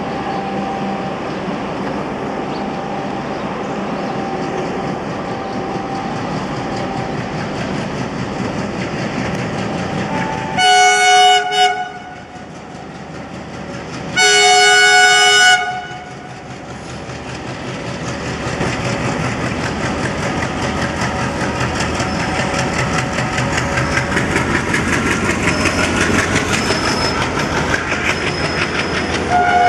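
WDG-3A diesel locomotive running as it approaches slowly and sounds its horn twice, each blast a little over a second, a few seconds apart. The engine then grows steadily louder as it draws level and the coaches roll past with wheels clicking over the rail joints.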